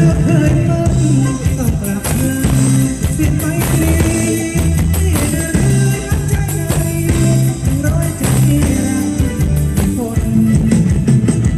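Live band playing Thai ramwong dance music, with a drum kit keeping a steady beat and a singer over it.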